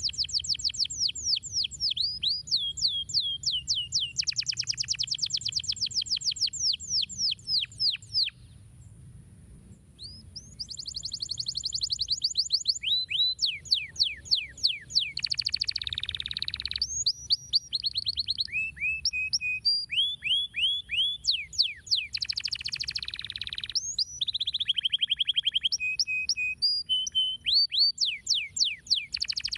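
Domestic canary singing: fast trills of rapidly repeated downward-sweeping notes, broken by a pause of about two seconds near a third of the way through, then varied trills and short held notes.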